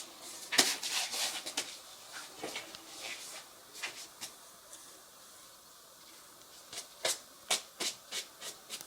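Rubbing and scraping of hands against the plastic housing of an indoor air-conditioner unit as it is worked off the wall, with a run of short sharp clicks near the end.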